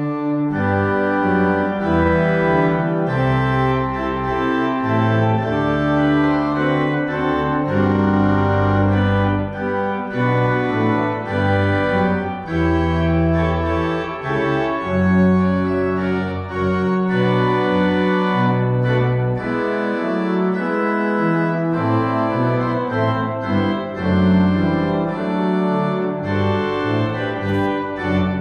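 Organ music starting abruptly: full sustained chords over a deep bass line whose notes change every second or so, played as the closing voluntary at the end of the service.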